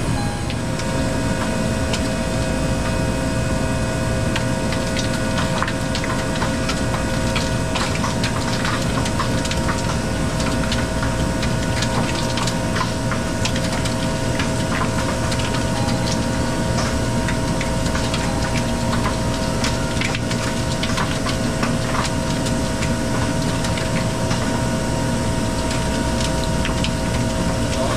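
Hoshizaki KM-1600 ice machine with a newly fitted compressor running in its harvest cycle: a steady machine hum with several held tones, scattered with irregular sharp ticks and crackles.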